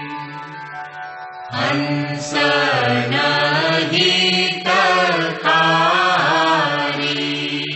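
Devotional aarti chanting to the guru. A long note is held at first. About a second and a half in, a sung line begins with gliding pitch, and it settles back onto a held note near the end.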